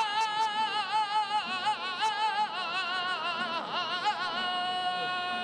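A man singing a saeta unaccompanied: a flamenco melisma of quick wavering ornaments on one vowel, settling about four seconds in into a long held note.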